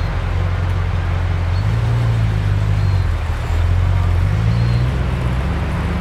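Series 3 Land Rover's engine running as the vehicle drives off, a low steady note that shifts in pitch several times.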